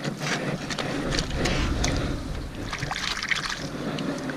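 Wet sand and shallow seawater squelching and sloshing as the tidal flat is worked by hand, with scattered small clicks of shell grit. There is a low rumble through the first half.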